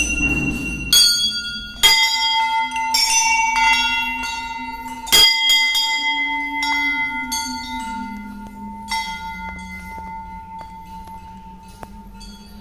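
Hanging Hindu temple bell struck several times by hand over the first five seconds, each strike leaving a long ringing tone that fades slowly.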